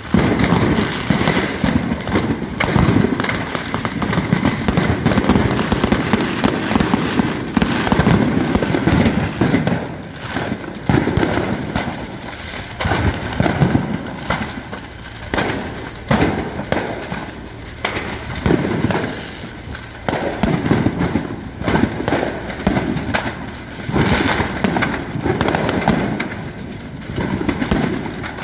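Fireworks going off uncontrolled in a large fire: a dense, continuous crackle of bangs and pops that swells and eases every few seconds.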